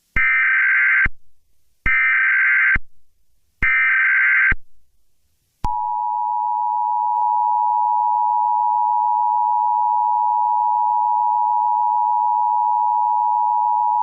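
Emergency Alert System tones: three short buzzing bursts of SAME header data, each a little under a second long, then the steady two-tone attention signal held for about eight seconds, which cuts off near the end. The sequence introduces a tornado warning.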